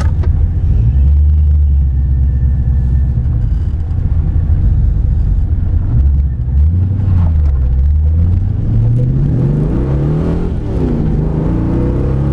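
The Ford Capri's 4.6-litre Rover V8, on an Edelbrock carburettor with a custom stainless steel exhaust, running with a deep, steady note, then accelerating: the engine note rises, dips briefly as at a gear change, and rises again near the end.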